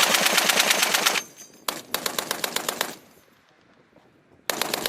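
M2A1 .50-calibre heavy machine gun firing short bursts of rapid, evenly spaced shots: two bursts of just over a second each, then a quieter third burst starting near the end.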